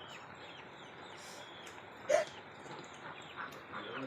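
Birds calling in the background: repeated small chirps, with one louder, short call about two seconds in.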